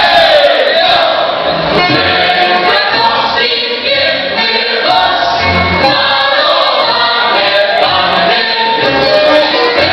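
Krakowiak, Polish folk dance music, with a chorus of voices singing over the band.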